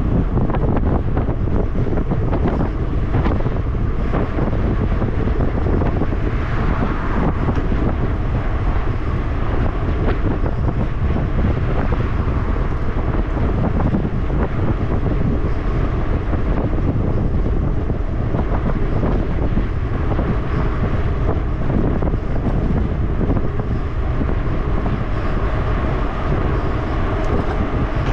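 Steady wind rushing and buffeting on the microphone of a bike-mounted camera while riding fast on a paved road, with a heavy low rumble.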